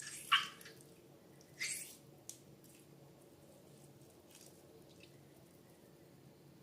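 Slime squelching a couple of times in the first two seconds, with a small click after, then quiet.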